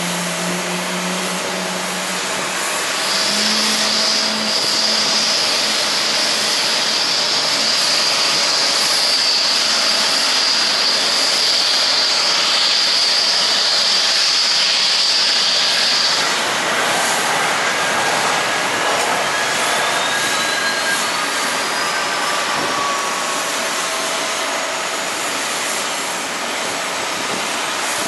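Jet airliner's turbofan engines running loud: a roar with a steady high whine that stops about halfway through, after which one whine slowly rises in pitch while another falls.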